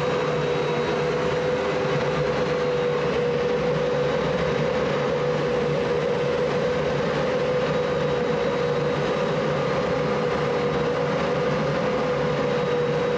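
Steady drone of running boiler plant machinery: an unchanging hum over a low rumble, with no change in level throughout.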